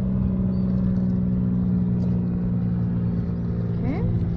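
A boat engine running steadily at an unchanging low pitch. A brief rising squeak comes about four seconds in.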